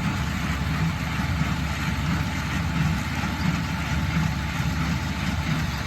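Farm tractor engine running steadily at a low, even speed.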